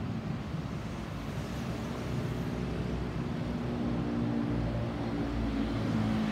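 Distant low rumble of a Boeing 737-800 airliner's CFM56-7B jet engines passing high overhead, with a steady hum that grows a little louder in the second half.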